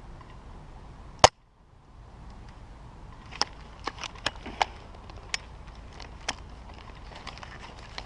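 One loud, sharp airsoft rifle shot close by, about a second in, then a scatter of smaller sharp cracks and ticks of airsoft gunfire over the next few seconds.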